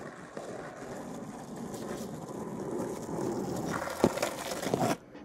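Skateboard wheels rolling on rough asphalt, growing louder as the board comes closer. A sharp clack comes about four seconds in and another shortly after, then the sound cuts off suddenly.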